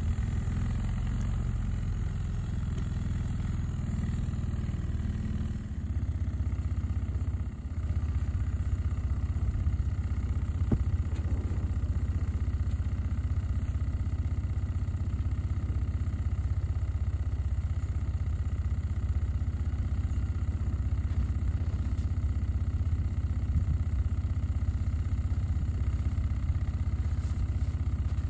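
Cushman Truckster's engine running steadily just after a cold start at −5°F, its level dipping briefly twice in the first eight seconds.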